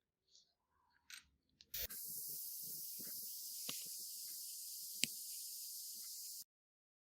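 A click, then a steady high spraying hiss that runs about four and a half seconds and cuts off suddenly, with a sharp click about five seconds in.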